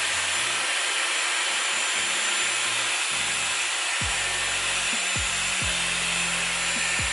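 Dyson Airwrap hair styler running with a steady rush of air from its curling barrel as a section of long hair is wrapped around it. Low rumbling comes in from about three seconds in.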